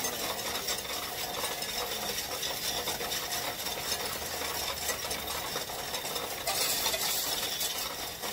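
Loose coins clinking and rattling as they are fed through a Coinstar coin-counting kiosk, a dense run of small metallic clicks, louder for a moment about six and a half seconds in.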